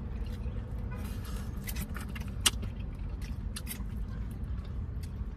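Biting and chewing a crispy fried chicken wing: scattered crunchy clicks and ticks, with one sharper crack about two and a half seconds in. Under it is a steady low hum from the idling car.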